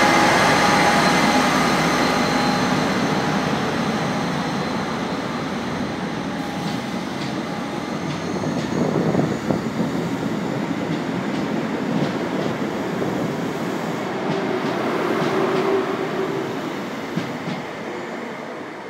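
Class 57 diesel locomotive pulling away under power, its engine note strong at first and fading over the first few seconds, then Mk3 coaches rolling past with clicks of wheels over rail joints. The sound dies away near the end as the last coach draws off.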